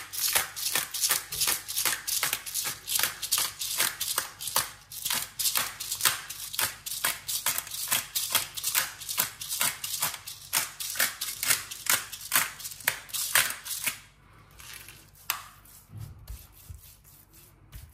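Pepper mill being twisted to grind black peppercorns, a steady run of crunching clicks about four a second that stops about fourteen seconds in.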